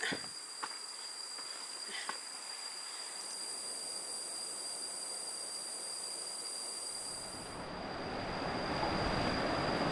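Insects shrilling in two steady high-pitched tones, with a few light clicks in the first two seconds. About seven and a half seconds in, the higher buzz cuts off suddenly and a steady rushing noise swells up.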